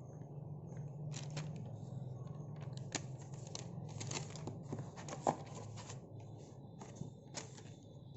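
Packaging being handled: irregular rustling and clicks, with sharper knocks about three and five seconds in, over a low steady hum.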